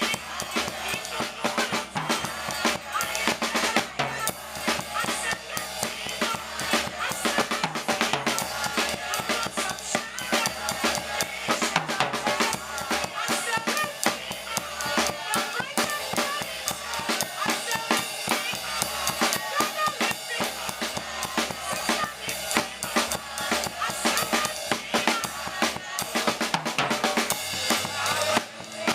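Live gospel band music with a drum kit playing a busy, steady beat on bass drum and snare.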